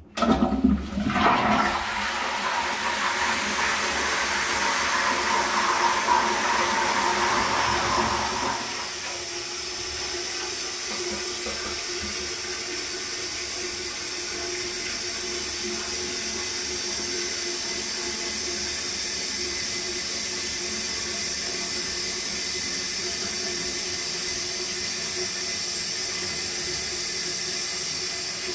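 Toilet flushing: a sudden loud rush of water lasting about eight seconds, then the cistern refilling with a steady hiss.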